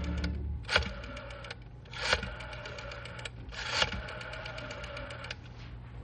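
Sound effect of a rotary telephone being dialled: rapid runs of dial clicks broken by four louder clacks, over a steady hum, stopping shortly before the end.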